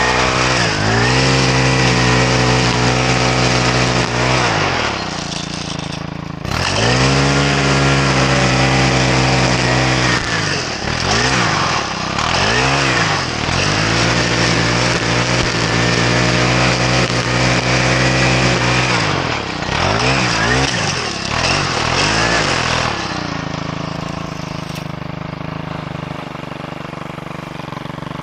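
Small petrol engine of lawn equipment running hard, its speed dropping and climbing back up several times, around 5 s, twice between 11 and 13 s and around 20 s, then running lower and rougher near the end.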